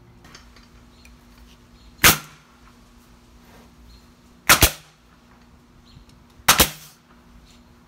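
Hitachi pneumatic angled finish nailer firing three times, roughly two seconds apart, each a sharp bang as a nail is driven through brickmold trim.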